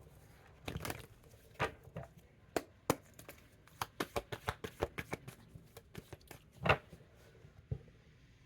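Tarot cards being shuffled and handled: a scattered series of sharp snaps and clicks, with a quick run of them in the middle and one louder snap about two-thirds of the way through.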